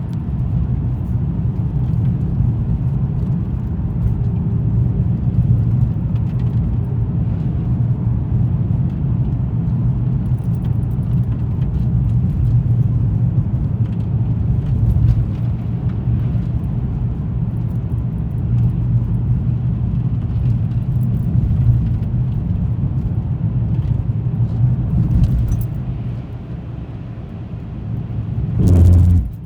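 A car driving on the road, with a steady low engine and tyre rumble. Near the end it briefly dips, then a short, louder rush follows.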